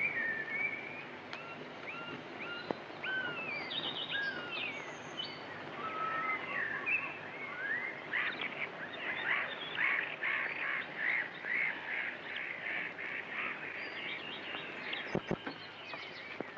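Birds calling: a string of short whistled chirps that rise and fall, then a call repeated evenly about two or three times a second for several seconds. Two sharp knocks come about a second before the end.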